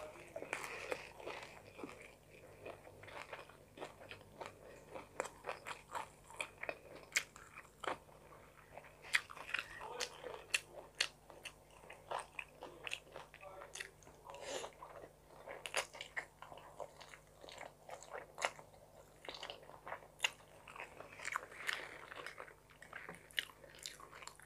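Close-miked chewing and wet mouth sounds of a person eating forkfuls of tuna carbonara spaghetti, a rapid irregular run of sharp little clicks.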